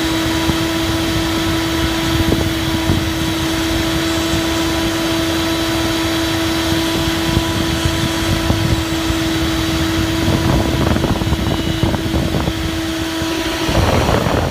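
CNC milling machine running, its spindle giving a steady high whine over a wide mechanical noise. The whine stops about a second before the end, followed by a short burst of rougher noise.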